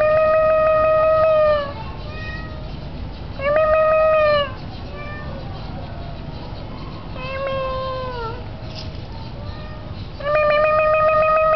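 Tomcat meowing: four long, drawn-out calls held on a steady pitch, the third sliding down at its end, with softer short mews between them. A low wind rumble sits underneath.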